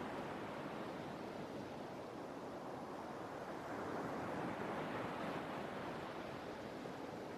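Sea waves washing on the shore in a steady surf, with one wave swelling up a little past halfway.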